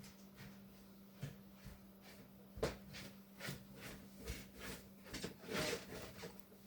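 Miller E3 electric furnace giving a faint, steady hum, with a series of irregular clicks and knocks over it, the loudest about two and a half seconds in.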